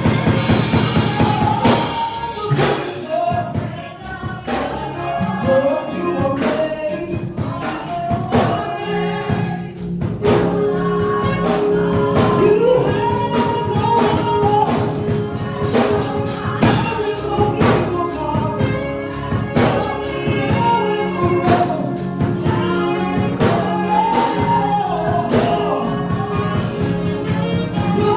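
Gospel music: voices singing over instruments with a steady beat.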